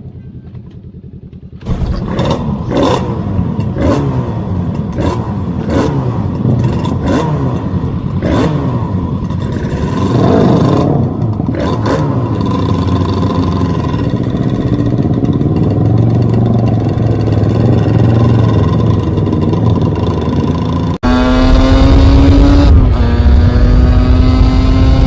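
Yamaha RZ350's two-stroke parallel twin revved in quick throttle blips about once a second, then held at a steadier rev. After a cut about 21 seconds in it runs louder, its pitch rising, dropping once about 23 seconds in and rising again.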